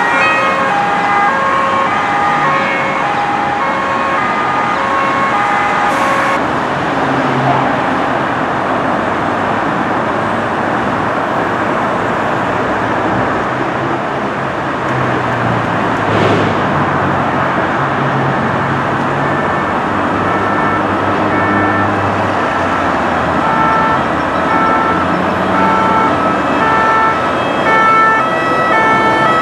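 French two-tone emergency siren, the 'pin-pon', switching steadily back and forth between a high and a low note. It is heard over the steady rush of motorway traffic. The siren is clearest near the start and again toward the end.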